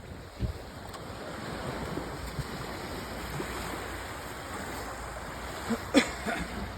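Small waves washing on a beach, with wind rushing across the microphone. About six seconds in there is a short, sharp knock or splash, louder than the surf.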